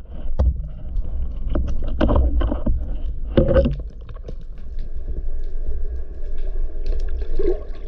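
Underwater sound picked up by a spearfisher's action camera: a heavy rumble of water moving over the housing, with knocks and clatter from handling the speargun and a speared sea bass during the first few seconds. About halfway in it settles to a steadier rumble with a faint steady whine.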